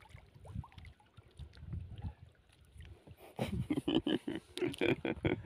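Water lapping and slapping against the hull of a small fishing boat, with light knocks of handling; about three seconds in, a louder run of quick slaps starts.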